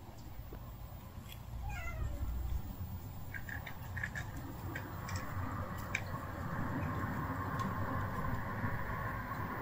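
A stray cat meowing: one meow falling in pitch about two seconds in, followed by a few light clicks and a steadier drawn-out sound later on.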